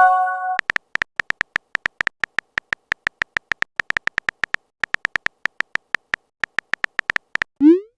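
Phone texting sound effects. A short electronic chime opens it, then rapid keyboard tap clicks, about six to eight a second, as a message is typed, and a quick rising whoosh near the end, the message being sent.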